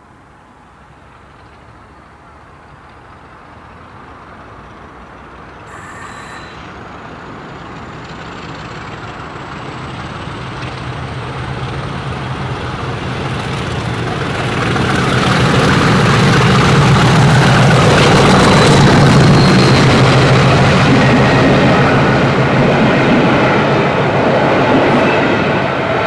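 Class 50 diesel-electric locomotive, its English Electric 16-cylinder engine growing steadily louder as it approaches, from faint to loud over about fifteen seconds. It then stays loud as the locomotive and coaches run past with wheel and rail noise.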